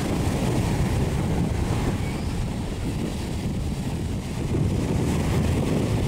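Wind blowing across the microphone, with the wash of small waves breaking on a sandy shore underneath; it eases a little midway.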